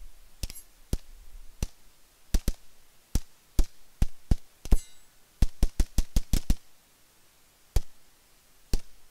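Gunfire from AR-15-style rifles and pistols: about twenty single shots at an uneven pace, with a fast string of about seven shots in just over a second near the middle.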